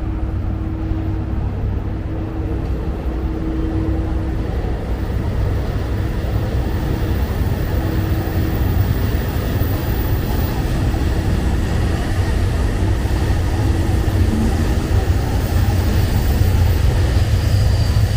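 Outdoor city street noise: a steady low rumble, with a faint hum coming and going.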